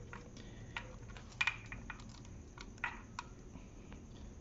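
Light, irregular metallic clicks and taps of timing-chain links on a Dodge Dakota 3.7 V6's crankshaft sprocket as the chains and sprocket are worked into place by hand, the sharpest click about a second and a half in.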